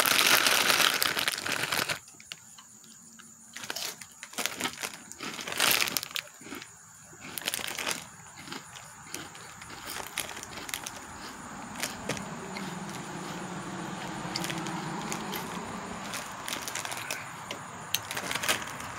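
Plastic snack bag crinkling as it is handled and waved close to the microphone, loudest in the first two seconds, then scattered crinkles and crackles.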